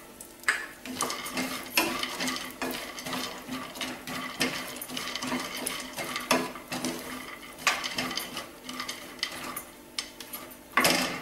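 Wooden spatula stirring and scraping chopped cashews, almonds and pistachios around a nonstick pan as they roast in ghee: irregular clicks and scrapes of nuts against the pan, with a louder knock near the end.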